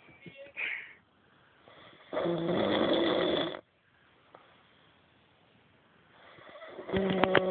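A woman snoring loudly in her sleep: two long snores about four and a half seconds apart, the second one rattling.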